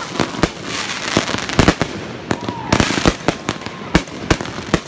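Aerial fireworks bursting in rapid succession: many sharp bangs at irregular intervals, with crackling in between.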